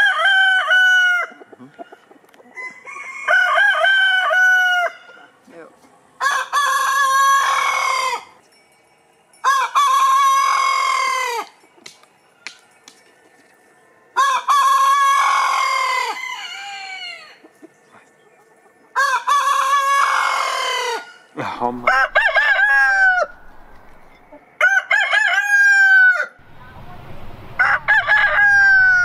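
Heritage-breed roosters crowing one after another: a Dorking, barred Amrock roosters and a Proveis-Ultental rooster. There are about nine long crows, each one to three seconds long, and each trails off falling in pitch, with short gaps between them.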